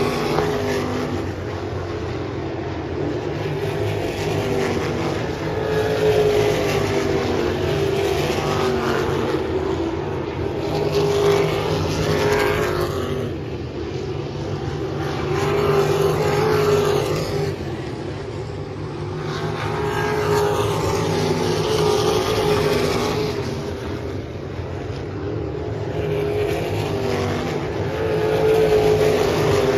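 Wingless sprint car engine on a qualifying run around a dirt oval. It rises in pitch and swells as the car accelerates down each straight, then drops off as it lifts for the turns, every few seconds.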